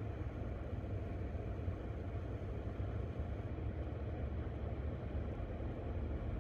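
Steady low road and engine rumble heard from inside a moving car.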